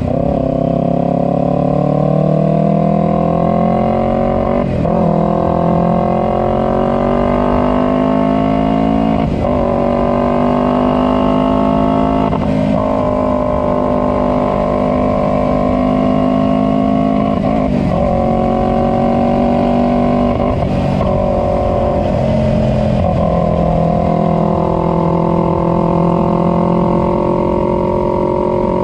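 Taro GP1 400cc motorcycle engine through an aftermarket Akrapovic twin exhaust, pulling through the gears while riding. The engine note climbs steadily, then drops at each gear change, five times, before settling into a steadier cruise near the end.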